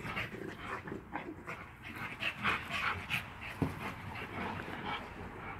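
An American Staffordshire terrier and a French bulldog panting while they play, in quick, rough breaths several times a second. A single sharp knock comes about three and a half seconds in.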